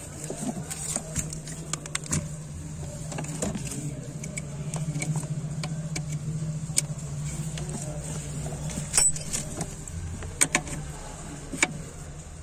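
Small plastic and metal clicks and rattles as a car's brake light switch and its connector under the dashboard are handled and turned in their bracket, over a steady low hum. The switch is being set further forward so the brake pedal presses it fully, the fix for brake lights that stay on by themselves.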